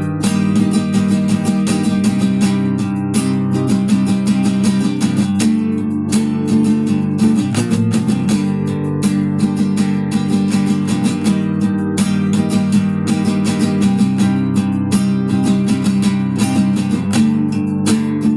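Acoustic guitar played in steady strummed and plucked chords, an instrumental interlude with no singing.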